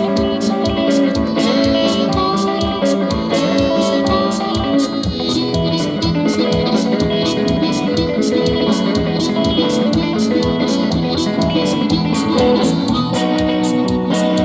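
A band playing an instrumental passage with no vocals: guitar over a steady drum beat of about three strokes a second.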